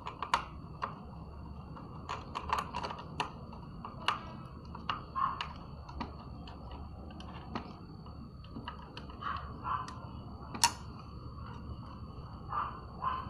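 Irregular light clicks and taps of small parts and cables being handled while an active speaker's amplifier board is wired in, over a faint steady high whine. The loudest click comes about ten and a half seconds in.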